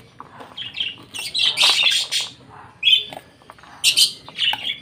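Pet lovebirds giving shrill, harsh calls in several short bouts, the longest and loudest about a second and a half in. These are hungry birds calling for their food.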